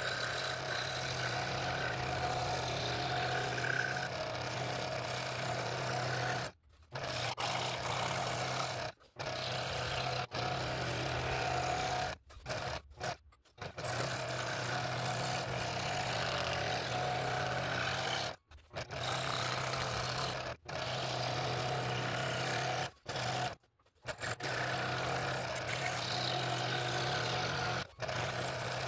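Scroll saw running, its reciprocating blade cutting through a wood blank with a steady motor hum. The sound cuts off abruptly for a moment several times.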